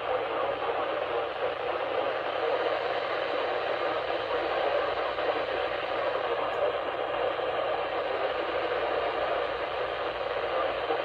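Steady hiss of radio static from a weather radio receiver, with no voice coming through.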